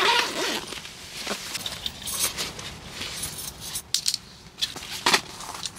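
Rustling with scattered light clicks and taps, the sharpest about two seconds in, again past three seconds and near the end.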